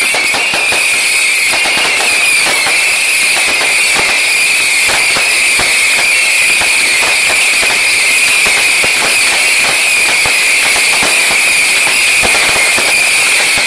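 Consumer fireworks cakes firing in a finale: a dense, continuous run of bangs and crackling star bursts, loud throughout, over a steady high-pitched hiss.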